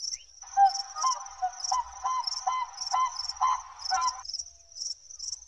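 Crickets chirping in a pulsing rhythm, about two chirps a second. About half a second in, a run of short repeated animal calls joins them, about three a second, and stops about four seconds in.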